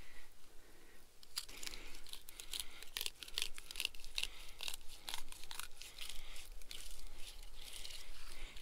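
Fillet knife cutting a rainbow trout, a rapid run of crackling and rasping as the blade saws along the backbone and through the ribs. It starts about a second in and goes on in quick, irregular strokes.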